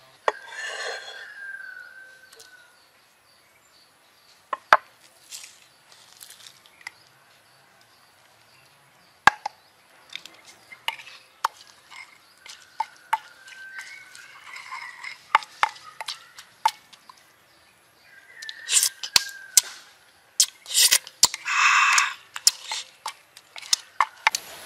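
Knife cutting tomatoes on a wooden chopping board, then a wooden pestle knocking and pounding a wet mash of chillies, tomato and spring onion in a wooden mortar: irregular sharp knocks. A few short animal calls sound in the background, the loudest near the end.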